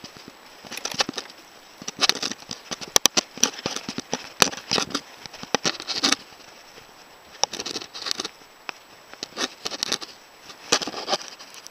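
Mountain bike rattling and clattering over a bumpy dirt trail: irregular bursts of clicks and rustling noise, coming every second or so.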